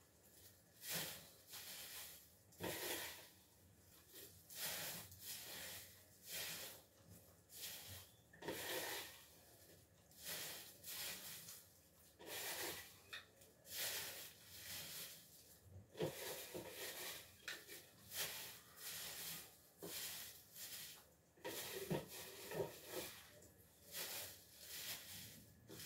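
Soft rustling and crinkling of dry garlic skins and plastic bags as garlic cloves are peeled and handled by hand, in short irregular bursts about once a second.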